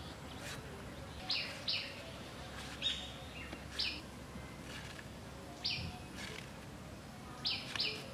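A bird chirping outdoors: short, falling chirps, about seven, irregularly spaced with some in quick pairs, over a low steady background.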